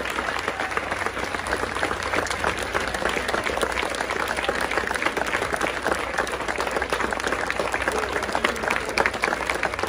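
Audience and dignitaries applauding: many hands clapping in a dense, steady patter.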